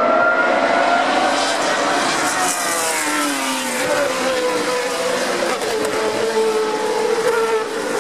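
Engines of several single-seater racing cars running at speed on a circuit, their notes sliding steadily lower in pitch as the cars approach. The lead car passes close near the end.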